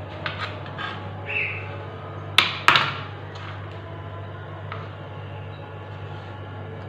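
Kitchen utensils clattering: a few scattered knocks and clicks, with two sharp knocks close together about two and a half seconds in, over a steady low hum.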